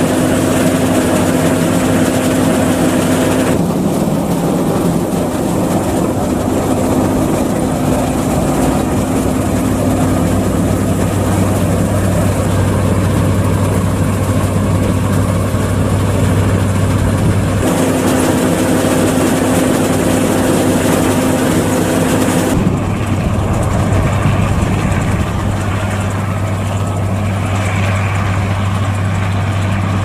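Massey Ferguson 520 Super II combine harvester running steadily while harvesting wheat: engine and threshing machinery with a steady hum. The sound changes character abruptly three times.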